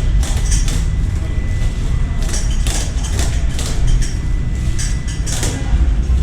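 Repeated metallic clinks and knocks from tyre-fitting work on a motorcycle wheel, over a steady low rumble.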